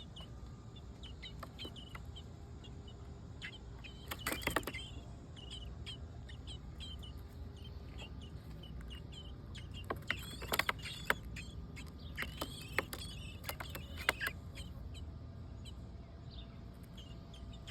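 Birds chirping in short, repeated calls, with a few bursts of sharp, scratchy clicks.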